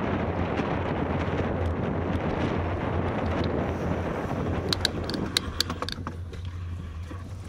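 Wind rushing over a bicycle-mounted camera's microphone while riding, easing off a little over halfway through. Just before it eases, a short run of sharp clicks.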